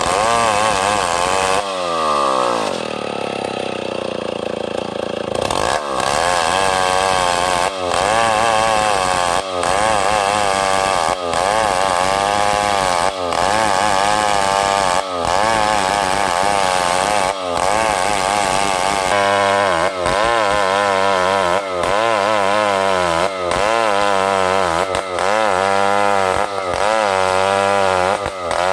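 Large chainsaw ripping lengthwise through a meranti log, running at high revs under load, with its pitch wavering and dipping briefly every second or two as the cut goes on. About two seconds in, the revs fall away, then climb back up a few seconds later.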